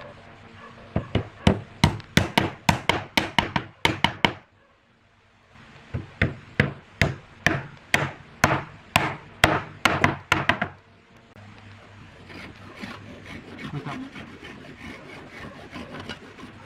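Wooden mallet driving wooden pegs into drilled holes in a pine frame: two runs of sharp knocks, about three to four a second, with a short pause between. After about eleven seconds, a hand saw rasps back and forth as it trims a peg flush with the wood.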